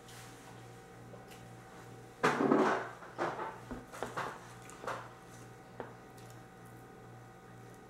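Things being handled: a loud rustle a couple of seconds in, followed by several short knocks and rustles and a single click, over a steady low hum.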